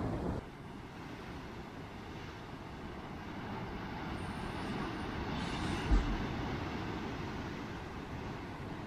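Ocean surf breaking against coastal rocks: a steady rushing that swells gently toward the middle, with wind on the microphone and one short low thump about six seconds in.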